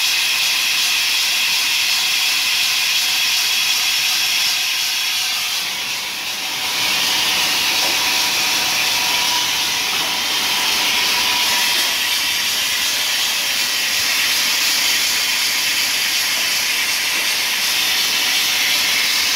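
Dry ice blasting machine spraying compressed air and dry ice pellets from its blast gun: a loud, steady hiss that dips briefly about six seconds in.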